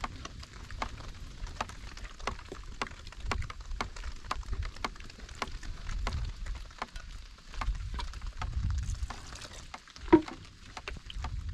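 Raindrops pattering as irregular sharp taps, several a second, over a low uneven rumble, with one louder knock about ten seconds in.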